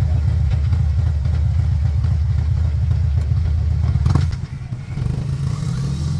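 Motorcycle engine running with a loud, pulsing low rumble as the bike rolls slowly through a turn. About four seconds in there is a sharp clunk and the engine note drops. Wind noise on the microphone builds near the end.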